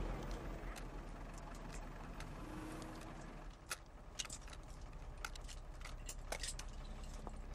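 Low steady hum of a vehicle interior, then from about halfway a run of small, sharp clicks and light rattles from something being handled.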